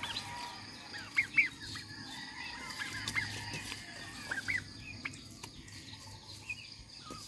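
Turkeys giving short, high calls, a quick pair about a second in and a few more around three and four and a half seconds, over a steady faint high hum.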